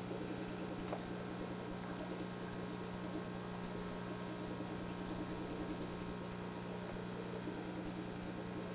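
A steady low electrical hum with a faint hiss.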